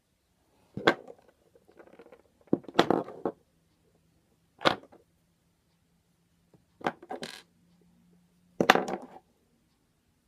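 Felt-tip markers being handled: short sharp clicks and clinks about every two seconds, with quiet gaps between them.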